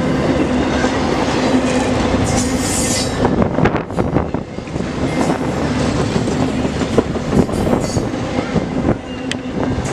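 Intermodal freight train cars rolling past close by, with a steady rumble of wheels on rail. From about three and a half seconds in, a run of wheel clicks over the rail joints comes through.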